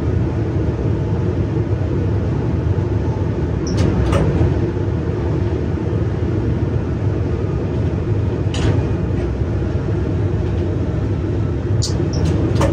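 Steady rumble of an electric regional train running along the track, heard from inside the driver's cab. A few short sharp clicks cut through it, about four seconds in, near the middle and near the end.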